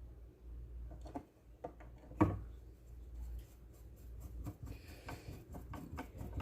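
Scattered small clicks and taps of blender parts and tools being handled, with one louder knock about two seconds in.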